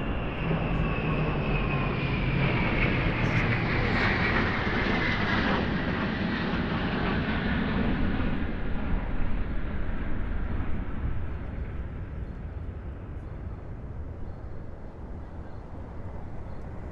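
Jet engines of an Il-78 tanker and Tu-160 bombers flying past in formation. A high whine falls slowly in pitch as they pass. The noise holds steady, then fades away in the last few seconds.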